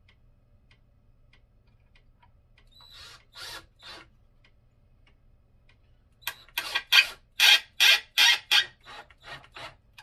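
Cordless drill run in short bursts, its bit grinding into the workpiece: a few bursts, then after a pause about a dozen louder ones at roughly three a second.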